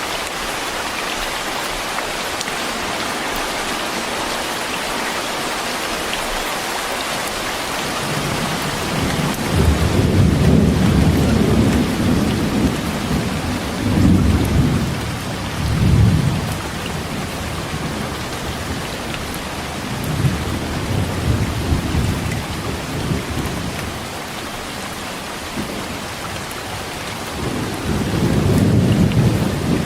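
Heavy rain falling steadily, with thunder rumbling several times over it: long deep rolls about a third of the way in and again near the end.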